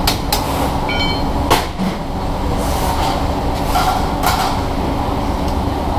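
Steady low workshop rumble with a few sharp metallic clicks and knocks, the loudest about a second and a half in, and a brief metallic ring about a second in, as the parts of an electric tricycle's front wheel and fork are handled and fitted.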